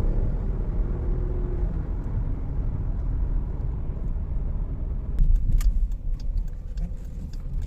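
Jeep Grand Cherokee's Pentastar V6 running smoothly at road speed with steady road rumble, its cylinder 6 misfire cured by a new ignition coil. About five seconds in, a run of sharp clicks and knocks sounds over the rumble.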